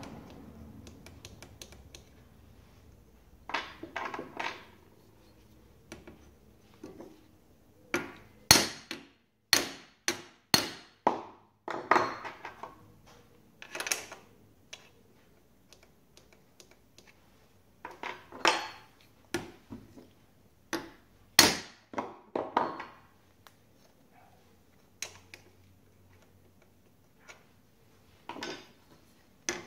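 Irregular sharp metallic clicks and taps, some with a brief ring, as a handsaw's steel teeth are handled and checked for set.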